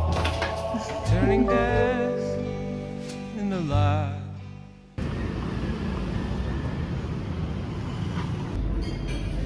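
Background music that fades out, then an abrupt switch about five seconds in to steady outdoor street noise with a low traffic hum.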